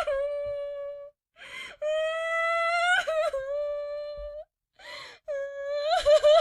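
A person crying: long, drawn-out high-pitched wails, each broken by a sharp gasping inhale. Three wails in turn, the middle one the longest, the last one wavering upward near the end.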